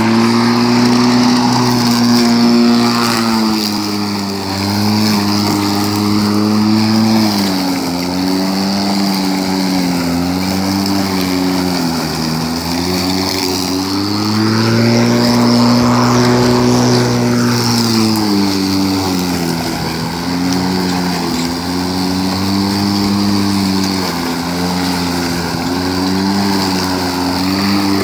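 Homelite UT13124 20-inch corded electric lawnmower running, its motor and blade hum sagging in pitch again and again as it bogs down in tall grass and rising back as the load eases.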